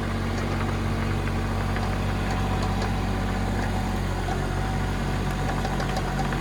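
Kubota K008-3 mini excavator's small three-cylinder diesel running steadily at raised revs while the machine travels forward on its tracks, with a few faint clicks.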